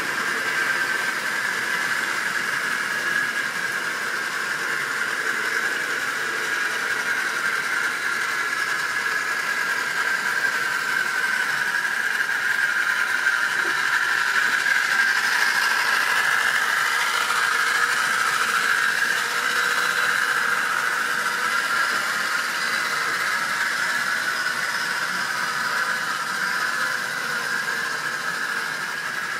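Model railway train running around its track: the locomotive's small electric motor whining and the wagons' wheels rolling on the rails. The sound is steady, swelling a little louder midway and easing toward the end.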